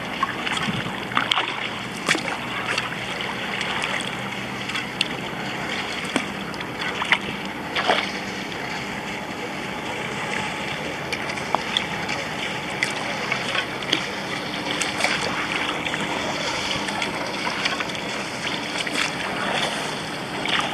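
Sea kayak being paddled: irregular splashes and drips from the paddle blades over water lapping at the hull, the splashes most frequent in the first several seconds.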